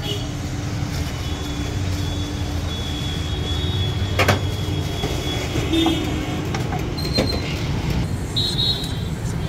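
Steady low rumble of street traffic, with two sharp knocks about four and seven seconds in.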